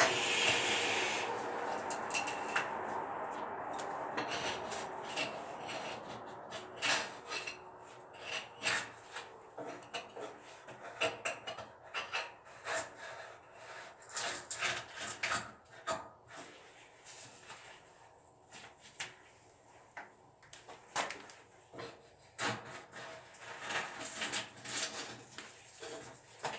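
Irregular scraping, rubbing and light knocking of hand work, with a steady hiss that fades over the first few seconds.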